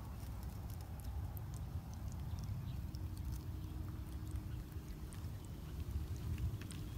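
Outdoor ambience: a steady low rumble, as of wind on the microphone, with scattered faint ticks and crackles throughout; a faint steady hum joins about three seconds in.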